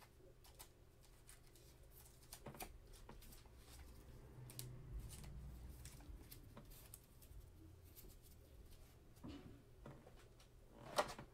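Faint rustling and scattered light clicks of plastic card sleeves being handled, as a trading card is slipped into a soft penny sleeve and then into a rigid toploader.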